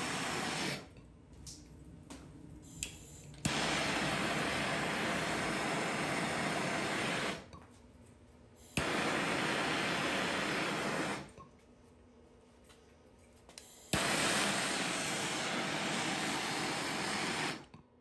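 MAP-gas hand torch flame hissing in four bursts, heating a copper HVAC joint to melt soft silver solder into the fitting. Each new burst starts abruptly with a click, and each dies away quickly when the torch is shut off, with quiet gaps of one to three seconds between them.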